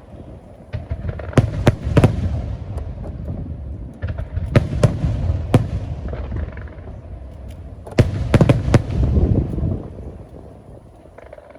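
Aerial fireworks shells bursting: sharp bangs in clusters, a quick run of four about eight seconds in, each trailing off in a low rumbling echo. The sound dies down near the end.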